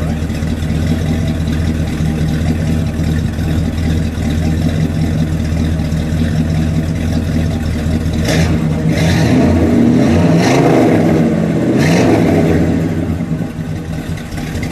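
1967 Buick GS 340's 340 cubic inch V8 heard at the dual exhaust, idling steadily. About eight seconds in it is revved a few times, the pitch rising and falling, then it drops back to idle.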